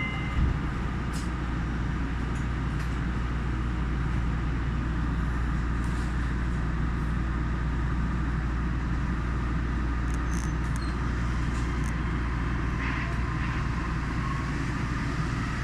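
Steady running noise inside a Yui Rail monorail car: a low rumble with an even hiss from its rubber tyres on the guideway, with a short thump about half a second in.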